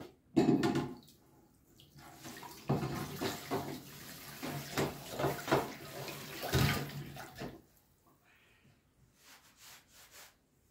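Kitchen tap running into the sink for about five seconds while dishes clink, then turned off. A loud knock comes just before, about half a second in.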